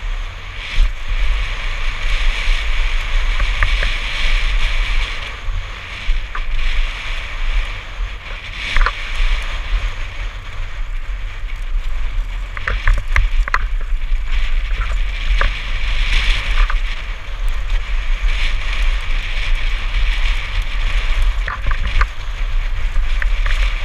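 Wind buffeting a helmet-mounted camera microphone at speed, over the steady crunch of mountain bike tyres rolling on a loose gravel trail, with scattered sharp rattles and clicks from the bike over bumps.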